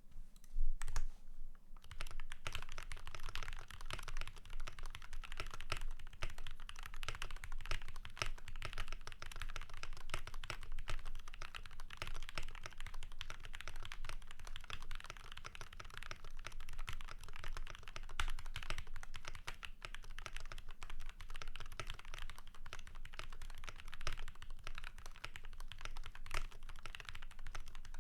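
Keychron K6 mechanical keyboard with lubed Gateron Brown tactile switches in a steel plate, tape-modded and dampened with polyfill and switch pads, under PBT Cherry-profile keycaps, being typed on continuously at a fast, even pace. It starts with a few louder key strikes about a second in.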